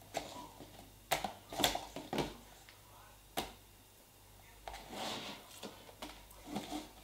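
Metal spoons clicking against plastic tubs while stirring and lifting homemade slime: a handful of sharp taps in the first few seconds, then softer scraping and rustling.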